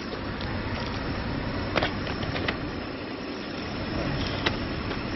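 A vehicle engine idling with a steady low rumble, and a few short sharp clicks or knocks about two, two and a half and four and a half seconds in.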